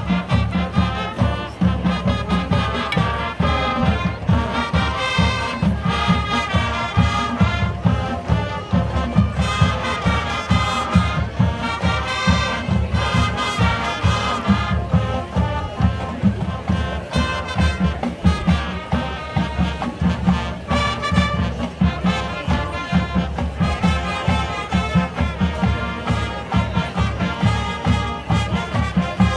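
Marching band playing: brass horns over a drumline keeping a steady beat.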